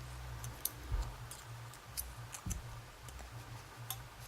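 Light, scattered clicks and taps of small tools handling a picked lock cylinder as it is readied for gutting, over a steady low hum.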